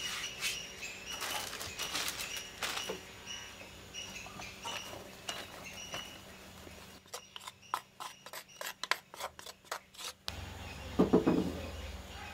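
Light clinks and taps of kitchen vessels (clay bowls, glass jars and a metal baking tin) being handled while flour is measured. Partway through comes a run of quick, evenly spaced ticks at about three to four a second, and near the end a few louder knocks.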